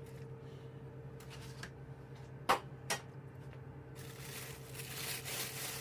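A spoon clicking sharply twice against the roasting pan while turkey juices are scooped out, then a soft rustling noise that builds near the end, over a steady low hum.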